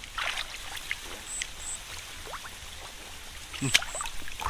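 Hands splashing and stirring in a shallow muddy pool, with trickling water. About three-quarters of the way through comes one sharper, louder splash.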